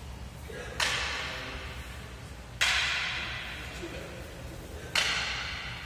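Three sharp clacks of wooden practice swords (bokuto) striking each other, roughly two seconds apart, each ringing out in a large hall's echo.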